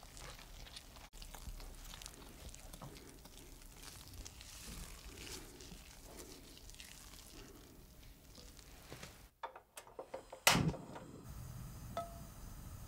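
Silicone spatula stirring and folding a thick, sticky batter in a glass bowl: soft, irregular squelching and scraping. About ten seconds in there is a single sharp knock, the loudest sound here, and after it a low steady noise.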